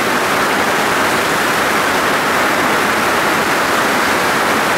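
Heavy downpour: a loud, steady rush of rain bucketing down.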